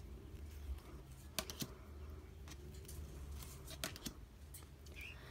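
Thick cardstock playing cards being slid off the front of a deck one at a time, giving a few faint, sharp clicks, some in quick pairs.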